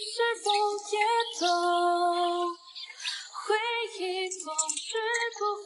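Background music: a woman singing a song, with long held, wavering notes.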